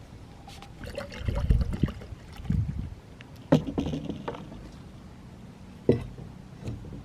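Objects being handled: clunks, rustling and irregular knocks, with two sharp knocks about three and a half and six seconds in.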